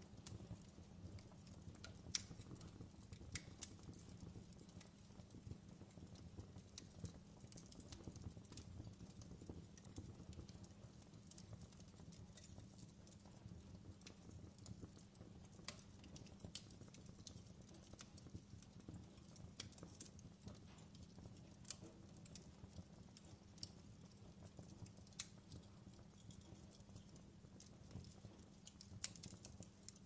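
Wood fire crackling: faint, irregular sharp pops and snaps over a low steady rumble.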